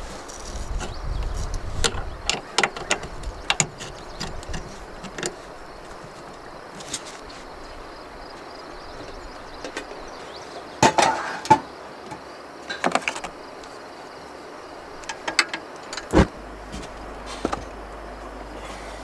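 Scattered clicks, knocks and clinks of camp gear being handled: a hose fitting under the van, a metal pot and wooden cabinet shelves, over steady background noise. The loudest knocks come about eleven seconds in.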